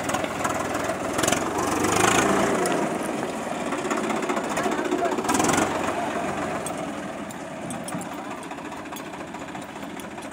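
Diesel tractor engine running with a rapid knocking clatter, swelling louder about two seconds in and again about five seconds in, then easing off.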